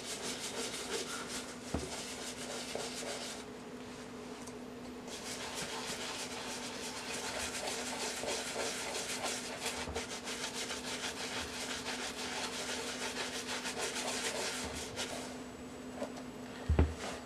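Small round shoe brush scrubbing the wet, soapy leather upper of a loafer in fast back-and-forth strokes, the bristles rasping on the leather. The strokes ease off briefly about four seconds in. Near the end the scrubbing stops, with a couple of soft knocks.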